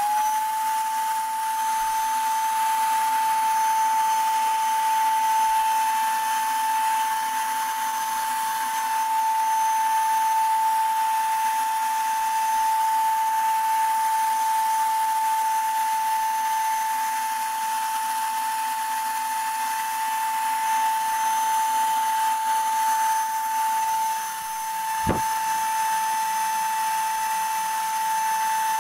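A power tool's electric motor switched on and running steadily, with a single high whine over an even rushing hiss. About 25 seconds in the level dips briefly and there is a single click.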